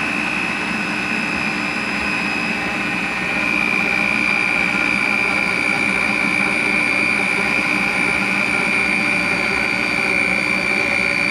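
Electric mixer running steadily, mixing pizza dough, with a constant motor whine that gets a little louder about three seconds in.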